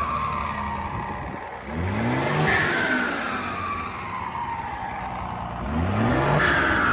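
Mercedes-Benz 1516 truck's turbocharged diesel engine revved twice, about two seconds in and again near the end. After each rev a high turbo whistle slowly falls in pitch as the revs drop.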